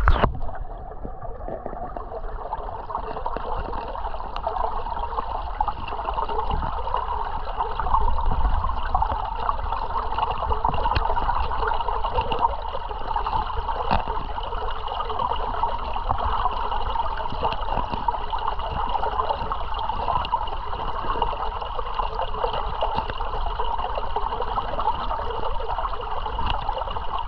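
Creek water running and trickling steadily over rocks at a small waterfall, with a few faint clicks of stones knocking.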